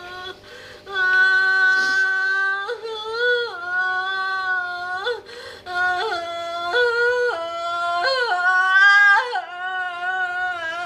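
A high-pitched voice wailing in long held notes that jump up and down between a few pitches, half singing and half crying, getting louder about a second in.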